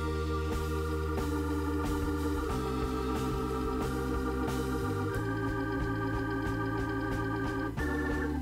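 Background music: sustained chords over a steady bass, the chord changing about every two to three seconds.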